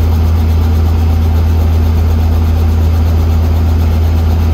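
Helicopter's engine and rotors running steadily on the ground, a loud constant drone heard from inside the cabin.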